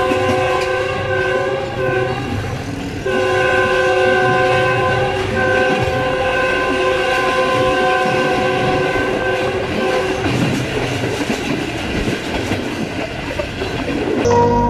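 A GEU 20 diesel locomotive's chime horn sounding in long blasts, with short breaks about three and five seconds in, while the train runs fast. After the horn stops, around ten seconds in, the wheels go on clattering over the joints of the rails.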